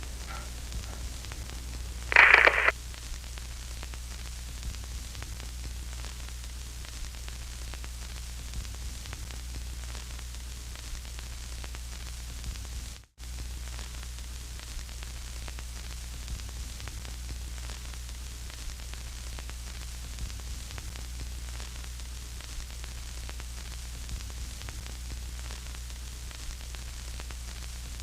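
Steady recording hiss over a low electrical hum. A short, loud burst of noise comes about two seconds in, and the sound cuts out for an instant about halfway through.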